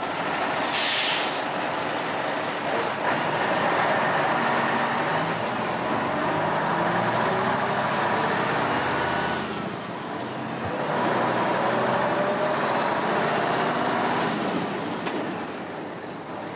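Tanker semi-truck driving on a dusty gravel road: the diesel engine runs under load with steady road and tyre noise. There is a short hiss about a second in, and the engine note eases off briefly twice, about ten and fifteen seconds in.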